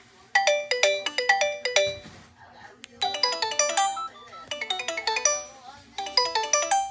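Alcatel OneTouch Cinch 1018B feature phone playing a ringtone through its speaker: a melody of quick notes, each struck sharply and dying away, in four short phrases with brief pauses between them.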